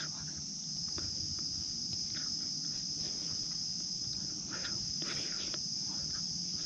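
Forest insects' steady high-pitched chorus, one continuous shrill drone, with a few faint brief noises about two, four and a half and five seconds in.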